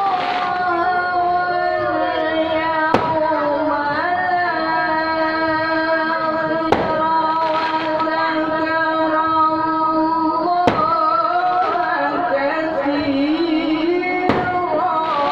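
Qur'an recitation (tilawah) sung by a single reciter, drawing out one long phrase in slow melodic ornaments that waver and glide in pitch. A sharp click cuts through about every four seconds.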